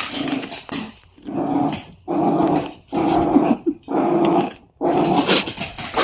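A pet growling in a run of about five drawn-out growls, roughly one a second.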